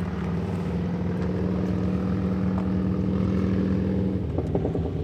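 Motorboat engine running steadily with a low, even hum; its note shifts and breaks up about four seconds in.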